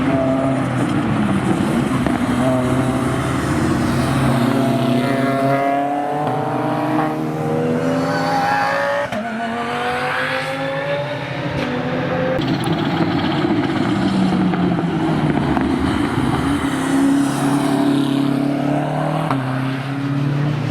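BMW M6 GT3's 4.4-litre twin-turbo V8 race engine under hard acceleration. The pitch climbs in several steps through the gears, with lulls as the throttle closes.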